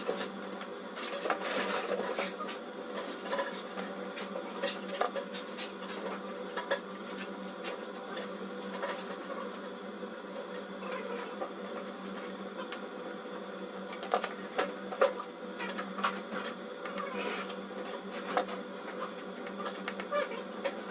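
Grooming scissors snipping through a rabbit's fur, a run of short, irregular clicks, over a steady background hum.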